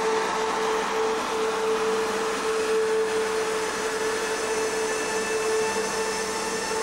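Queensland Rail diesel railmotor standing with its engines running: a steady hum with a constant whine.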